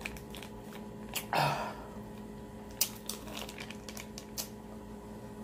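Scattered small clicks and crinkles of a plastic Fla-Vor-Ice freezer-pop sleeve being handled and squeezed, with one short, louder noisy rush about a second and a half in.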